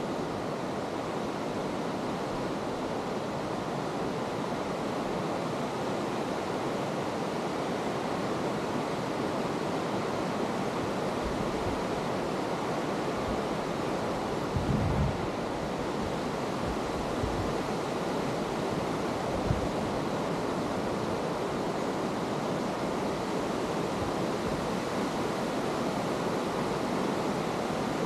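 Mountain river rushing over rocks in a gorge below, a steady even roar of white water. A few brief low bumps, like wind or handling on the microphone, come about halfway through.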